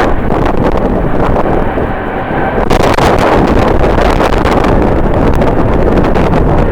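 Strong wind buffeting the microphone: loud, gusty rumble and crackle that eases slightly about two seconds in, then picks up again.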